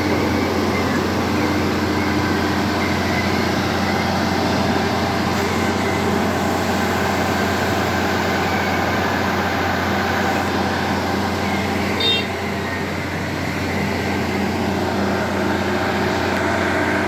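A large road-building machine's engine running steadily with a low hum. About twelve seconds in there is a brief high-pitched tone.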